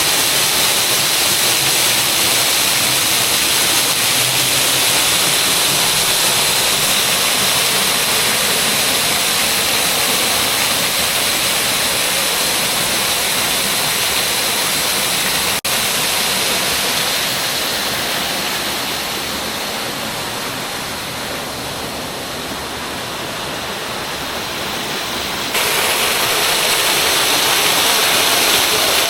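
Waterfall rushing steadily, swollen and running hard after days of rain. It dips briefly about halfway through, softens, then comes back suddenly louder a few seconds before the end.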